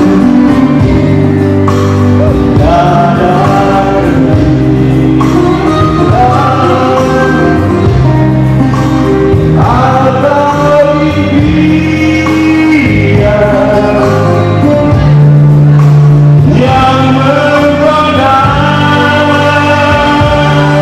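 A man singing through a microphone, accompanied by an electronic keyboard holding long low chords under his melody.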